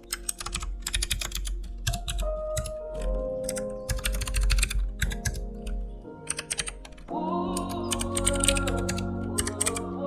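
Rapid typing on a computer keyboard, a fast run of key clicks, over background music.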